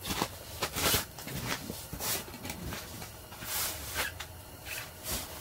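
Scattered crunching and rustling, about six short bursts at uneven intervals, as a person moves about on the snow-covered ice floor of an ice-fishing tent in snow gear.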